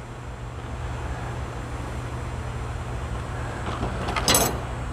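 Steady low hum of background noise, with a short clatter about four seconds in as the metal pry bars are handled.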